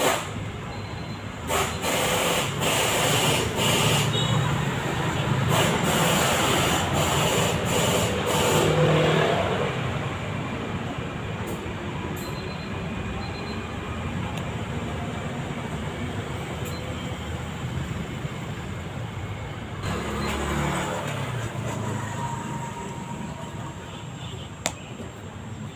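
Hand-stitching a running shoe: the needle is pushed through and the thread drawn out with rasping pulls, in a long spell near the start and a shorter one later, over a steady background hum.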